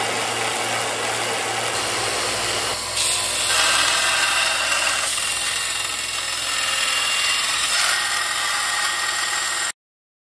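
Electric belt sanders running while a hand-forged coil-spring steel knife blade is ground against the belt, a steady grinding noise. The sound changes abruptly about three seconds in and cuts off suddenly just before the end.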